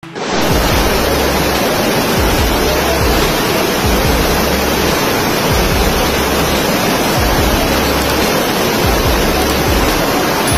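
Floodwater from heavy rain rushing past in a loud, steady torrent, with a deep rumble underneath.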